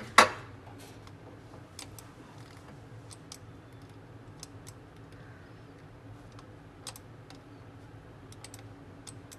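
Scattered sharp clicks of a computer mouse and keyboard, with one much louder click just after the start and about a dozen fainter ones, some in quick pairs, over a steady low hum.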